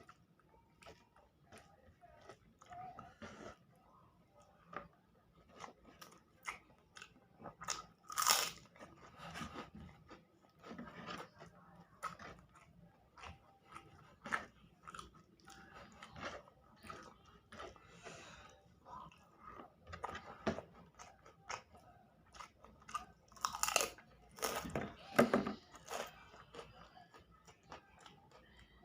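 A person eating close to the microphone: steady chewing with frequent crunchy bites. The louder crunches come about eight seconds in and again near twenty-four to twenty-five seconds.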